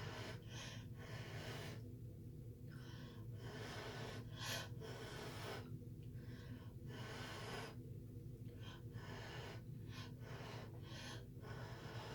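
A dozen or so short puffs of blown air pushing wet acrylic paint across a canvas, irregularly spaced and each under a second, over a steady low hum.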